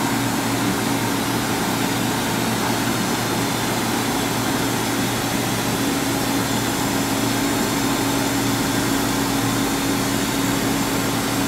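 LK Machinery TC-1200 vertical CNC drill-tap center running: a steady machine hum with one constant tone over an even hiss.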